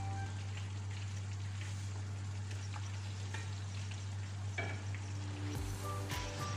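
Fish and black beans sizzling in a shallow sauce in a frying pan, stirred with a wooden spatula that scrapes and taps against the pan a few times.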